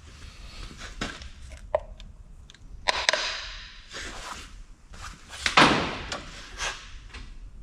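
Engine parts and hand tools being handled and set down: scattered clicks and knocks, with one louder knock about three quarters of the way in.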